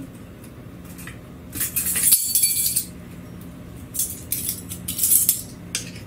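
A metal spoon scraping and clinking against the 304 stainless steel bowl of an electric blade coffee grinder while coarse grounds are scooped out, in two scraping bouts with a short metallic ring.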